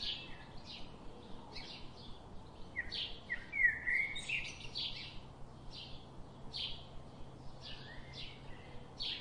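Small birds chirping in quick, irregular short notes, a few of them brief sliding calls.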